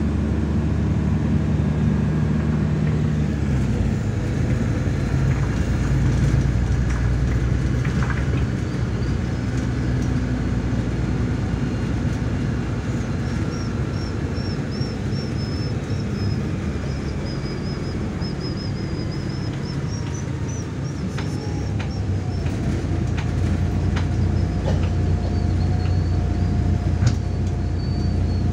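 Inside a MAZ 103 city bus on the move: steady engine hum and road noise. The engine note shifts about four seconds in, and a faint wavering high-pitched squeal comes and goes in the second half.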